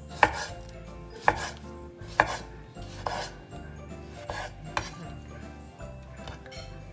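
Chef's knife slicing a tomato on a bamboo cutting board: the blade knocks on the board about once a second, half a dozen times, and the first three knocks are the loudest.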